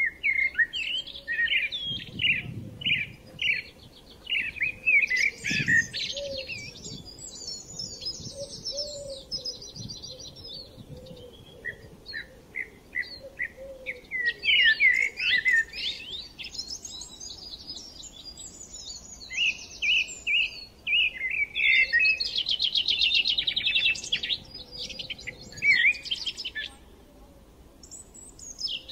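Small birds chirping: runs of short, high chirps and fast trills in bursts with brief pauses between.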